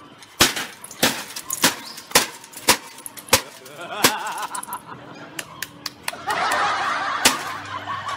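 Brick knocking hard on a table top, about seven sharp blows a little over half a second apart, then a few lighter clicks. Laughter follows from about six seconds in.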